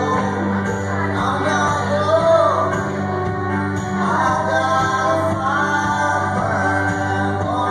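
Live band playing: a steady low drone held under wavering, sliding higher tones from guitar and keyboards.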